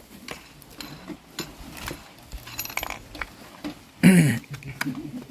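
Scattered light metallic clicks and clinks as a battery's terminal clamps are handled and fitted onto its posts, with a brief loud voice about four seconds in.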